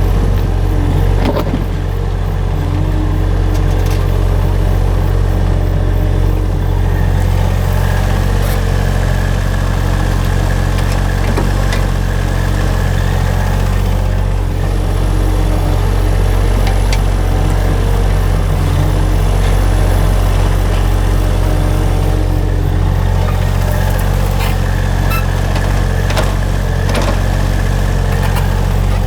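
Small engine running steadily at a low, even hum, with a few scattered clicks and knocks.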